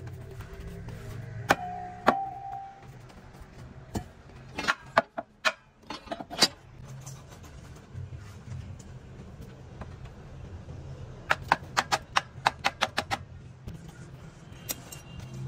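Sharp clinks and knocks at irregular intervals, with a quick run of about eight in a row near the end, over a steady low hum.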